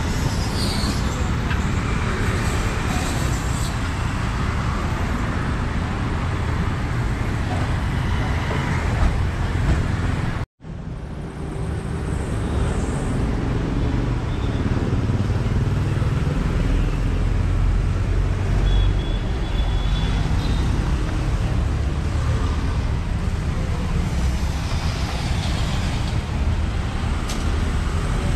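Steady street traffic noise from vehicles running along a busy city road. The sound cuts out completely for a moment about ten seconds in, then carries on.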